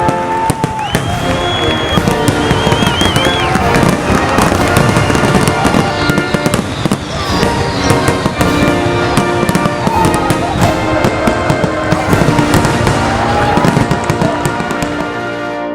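Fireworks display: frequent aerial shell bursts and crackling, with music playing over them.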